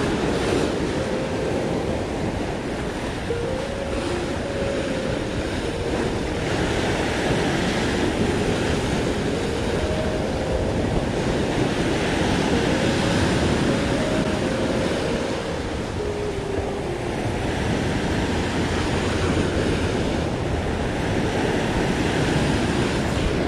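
Ocean surf surging and breaking over a rock ledge, a steady wash of water that swells and eases, with wind buffeting the microphone.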